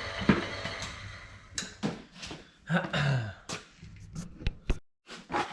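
A steady machine hum fades out over the first second. Then come scattered knocks and clatter, and a short throat sound or cough about three seconds in.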